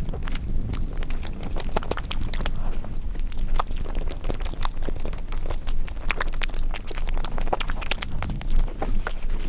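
Close-miked eating: chewing and mouth sounds, with many small irregular clicks and smacks over a steady low rumble.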